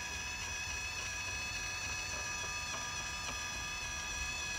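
Run-Chicken automatic coop door's small electric motor running with a steady whine as it winds the sliding door slowly upward, opening on its daylight sensor.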